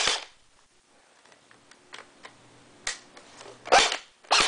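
Echo 1 P-90 electric airsoft gun firing short bursts indoors. One burst ends right at the start and a single click comes about three seconds in. Two louder bursts follow about half a second apart near the end.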